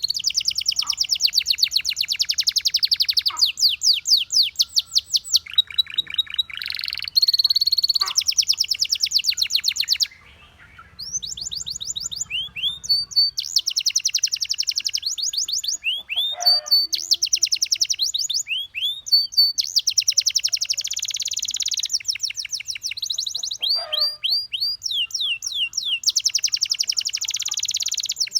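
Domestic canary singing: long runs of rapid repeated notes and fast rising trills, in phrases separated by short pauses.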